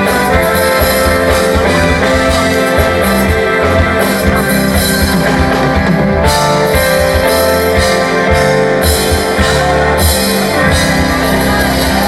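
Live band playing loud, steady instrumental music without singing.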